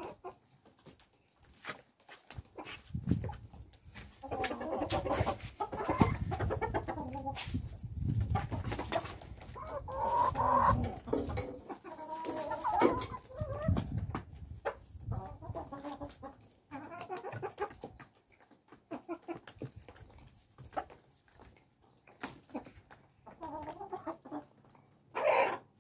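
Domestic chickens clucking over and over, hens with a rooster among them, and one louder short call near the end. A low rumbling noise runs underneath during the first half.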